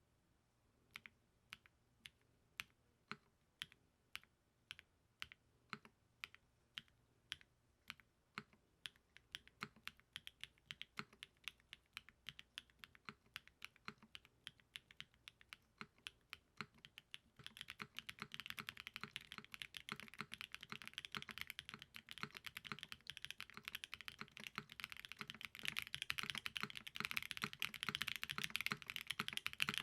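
Typing on a custom TKD Cycle7 mechanical keyboard with lubed Moyu Hera linear switches on a gasket-mounted FR4 plate. Single keystrokes start about a second in at roughly two a second and gradually quicken. About two-thirds of the way through it changes to fast continuous typing that is louder.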